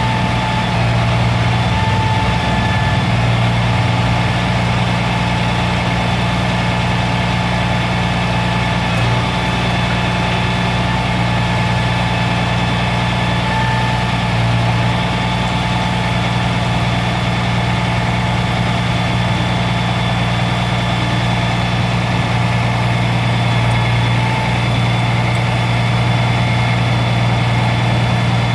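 Caterpillar C13 inline-six turbo diesel engine of a Freightliner M2 truck idling steadily.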